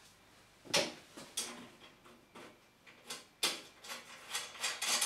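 Metal clicks and knocks as a table saw's fence rail is worked into place against the table edge, its coach bolts being pushed into their holes. A sharp knock comes under a second in, then scattered clicks that come thicker near the end.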